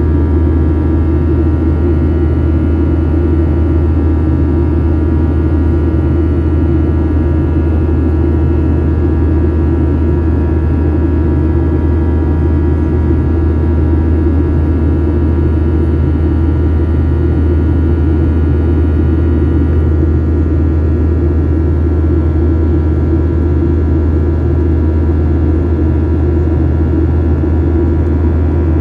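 Cabin noise of a Boeing 737-800 during climb-out: the CFM56 turbofan engines' steady drone, a deep hum under a set of steady whining tones.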